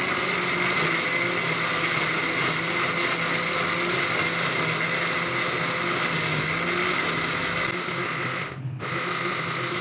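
Braun electric blender motor running steadily with a whirring whine, puréeing chopped mango chunks into a smooth purée. It cuts out for a split second near the end, then runs on.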